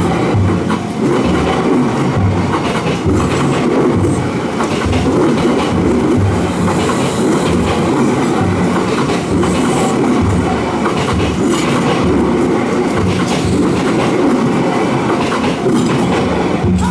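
Kintetsu Minami Osaka Line train passing over the level crossing, its wheels clattering rhythmically over the rail joints.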